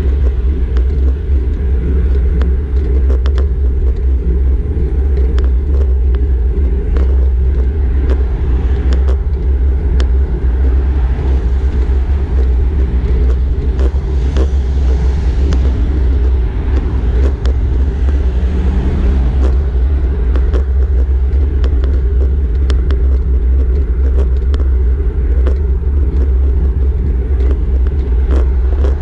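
Steady low rumble of road and wind noise on a handlebar-mounted GoPro on a road bike climbing at about 6 mph, with cars passing and scattered sharp clicks.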